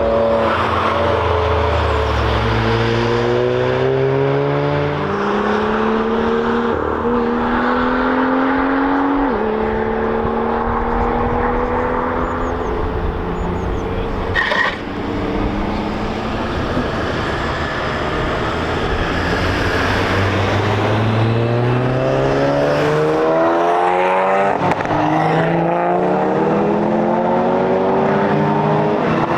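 Cars driving hard past on a race track, one after another, their engines climbing in pitch under acceleration and dropping suddenly at each upshift. A short sharp sound about halfway through.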